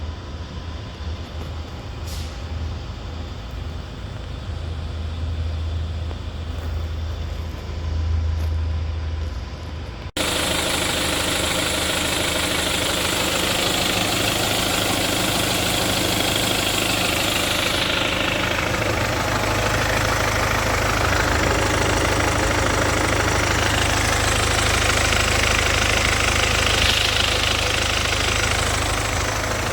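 BMW 320d four-cylinder diesel engine idling with a steady low hum. About a third of the way in the sound cuts abruptly to a louder, hissier recording of the engine still running.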